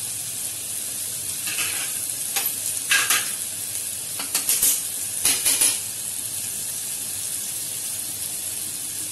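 Chopped onions and tomatoes sizzling steadily in hot oil in a pot on a gas stove, with a few short scrapes and knocks in the middle.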